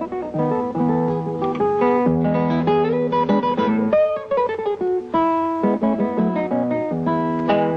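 Solo classical guitar playing a brisk passage of plucked notes over ringing bass notes, with a scale run climbing and then falling back in the middle.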